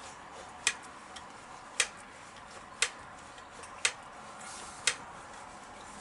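Hand grease gun being pumped, a sharp click with each stroke, five in all about a second apart, forcing grease into a brake caliper to push the pistons out.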